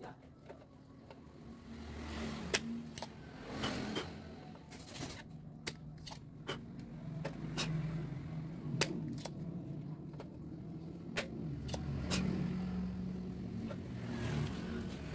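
Scattered sharp clicks and taps of small copier control-panel parts and tools being handled, over a low drone that swells and fades.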